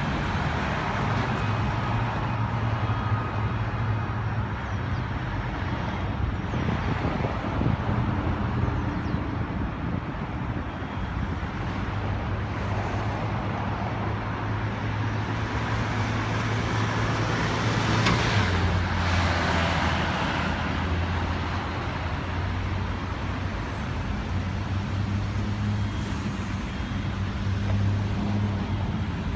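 Motor vehicle engines running steadily amid street traffic, with one vehicle passing louder about two-thirds of the way through.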